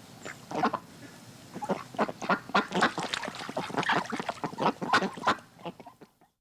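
Several ducks quacking in quick, overlapping runs, thinning out and fading near the end before the sound cuts off.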